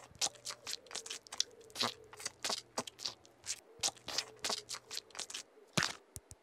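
A quick, irregular run of sharp clicks and clacks, small stones knocking together as they are handled.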